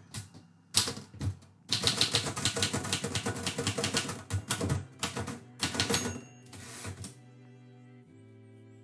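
Typewriter keys striking in quick runs of typing, stopping about seven seconds in, over quiet background music with sustained notes.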